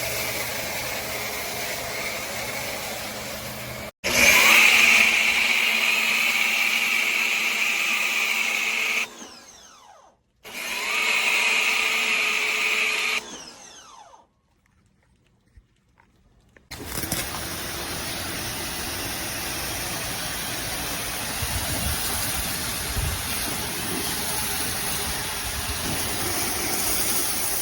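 Electric pressure washer running with a steady motor whine and spray hiss, in several short stretches that start and stop abruptly. There is a short near-silent gap before it runs on steadily.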